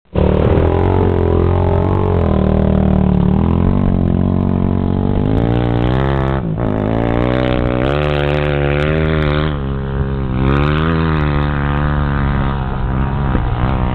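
ATV engine running under changing throttle, its pitch rising and falling repeatedly, with a sharp dip about six and a half seconds in before it climbs again.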